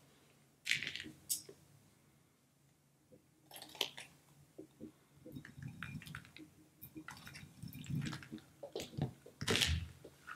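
Wet squishing and crackling of a stress ball filled with gel water beads as it is squeezed and cut open, with beads dropping and spilling into a bowl; the loudest rush of sound comes near the end as the beads pour out.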